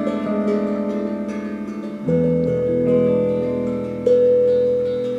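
Improvised duet of a picked electric guitar and a steel hand drum struck by hand. Two strong ringing notes come in about two and four seconds in and sustain over the rippling guitar notes.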